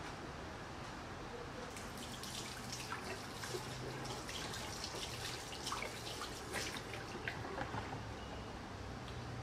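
Water splashing and dripping in small irregular taps, thickest from about two seconds in until near the end.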